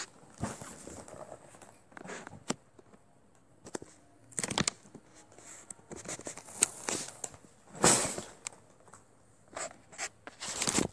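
A cardboard Lego set box being handled and opened, giving a string of separate short scrapes and tearing noises.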